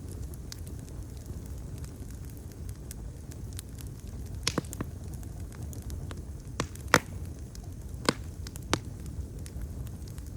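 Wood fire burning with a steady low rumble and scattered crackles, and a few sharper pops in the middle of the stretch.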